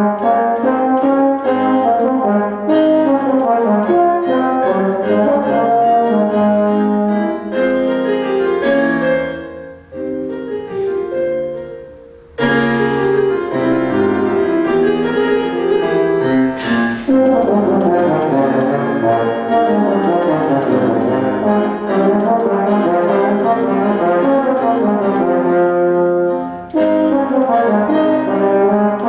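Tenor horn playing a melody with accompaniment, several notes sounding at once. About eight seconds in the music thins and fades into a short pause, then comes back in sharply just after twelve seconds.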